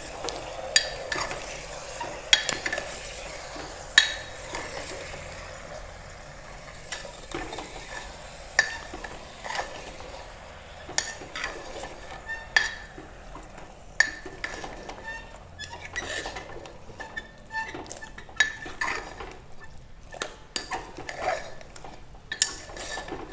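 A steel spoon stirring raw goat liver, kidney and lung pieces with fried onions in a pressure cooker, clinking and scraping against the pot at irregular intervals, over a faint sizzle that is strongest in the first few seconds.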